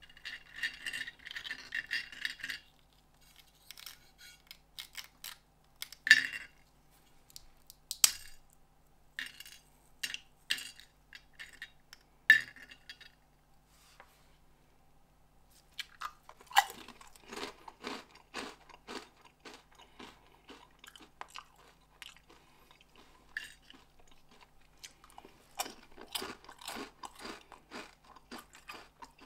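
Crisp honey-dipped barrel snacks crackling and snapping as fingers break them apart, with a few single sharp snaps. From a little past halfway the pieces are chewed with a steady crunching, about two crunches a second.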